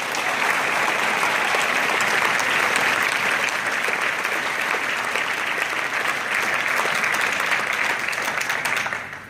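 Audience applauding steadily, a dense clapping that dies away about nine seconds in.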